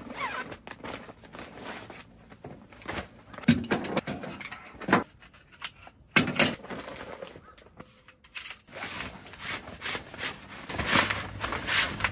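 Irregular knocks, clicks and rustling of things being handled, with a few sharp louder knocks scattered through.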